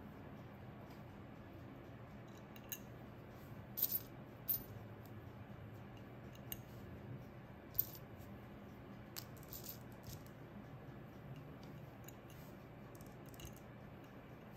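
Scattered light clicks and taps of small cut glass pieces being set onto a glass piece, a few sharper ones about four seconds in and near the middle, over a low steady hum.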